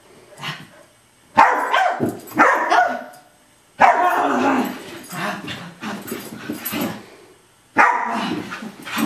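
Australian Cattle Dog mix barking in play, in short bouts: one brief bark, two more about a second and a half in, a longer run from about four to seven seconds in, and another bout near the end.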